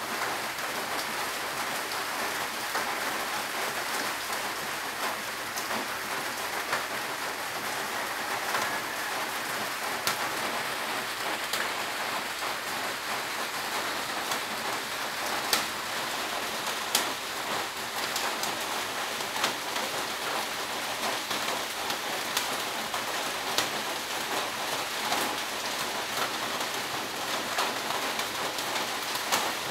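Gas stove burner hissing steadily under an aluminium moka pot as it heats, with scattered small ticks and crackles throughout.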